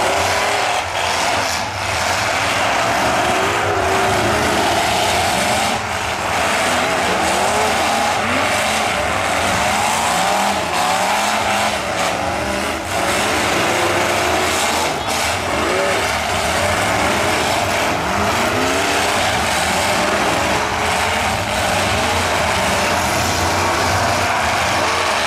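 Several demolition derby trucks' engines revving up and down together, with the occasional bang of a collision.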